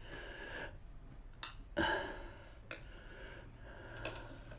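Bicycle pedal being tightened into the crank arm with a tool: a few light metal clinks, the loudest about two seconds in, with short stretches of scraping.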